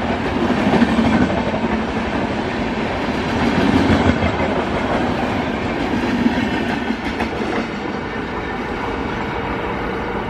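Red-and-grey LHB passenger coaches of an Indian express train rolling past close by at speed. The noise eases off in the last few seconds, after the luggage-brake and generator car at the rear has gone by and the train draws away.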